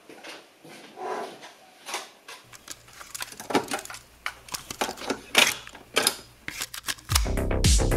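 A series of irregular clicks and knocks with a steady low hum setting in about two and a half seconds in; electronic music comes in near the end.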